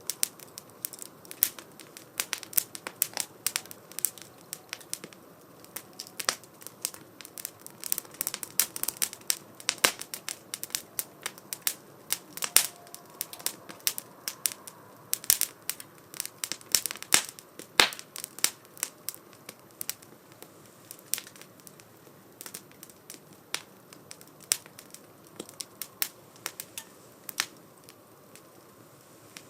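Wood fire crackling in a 2×4 STOVE wood-burning fire pit: a steady run of sharp, irregular pops, densest through the middle and thinning out toward the end.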